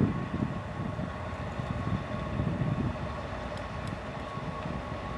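DB class 232 'Ludmilla' diesel locomotive running as it approaches at the head of a freight train: a steady low engine rumble with a constant high whine above it.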